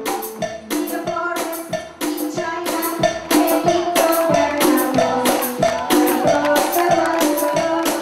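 Cumbia band music: a woman singing over a steady percussion beat of about four hits a second, with melodic instrument lines.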